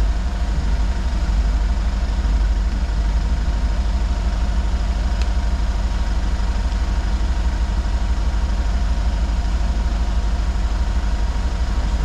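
An engine idling steadily with a low, even rumble.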